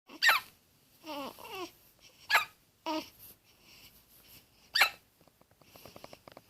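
A baby hiccuping three times, about two and a half seconds apart. Each hiccup is a short, high squeak that drops sharply in pitch, like a squeaky toy. Soft babbling sounds come between the hiccups.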